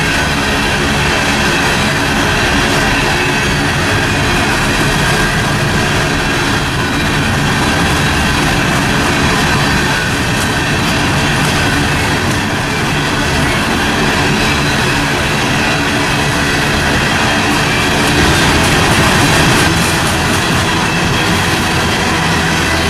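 Union Pacific freight train cars rolling past at steady speed, wheels clattering over the rails, with a thin high wheel squeal running underneath.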